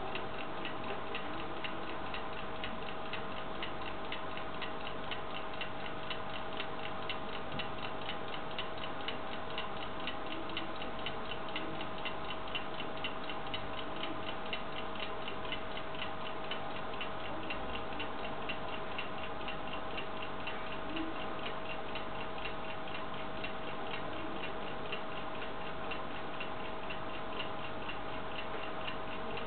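Small antique brass alarm clock ticking rapidly and evenly.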